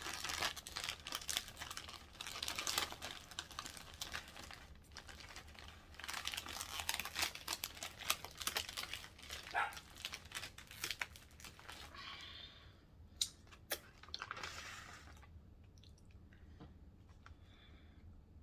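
Paper wrapping crinkling and rustling as a sandwich is handled, dense crackling for about twelve seconds, then a few sharp clicks and a short rustle before it quiets down.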